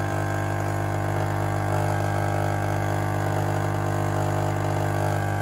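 Rancilio Silvia espresso machine's vibratory pump buzzing steadily while it pushes water through the coffee puck during a shot.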